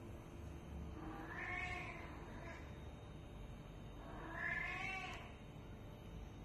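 A kitten meowing twice: a short call about a second in, then a longer, louder one about four seconds in, each rising and then falling in pitch.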